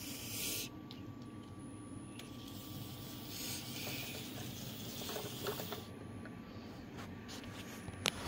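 Electric model train running on three-rail track: a steady rattle of wheels over the rails with a continuous motor hum, and one sharp click near the end.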